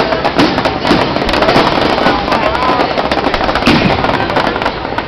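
Fireworks display with shells bursting and crackling in quick, dense succession, a near-continuous run of pops and cracks.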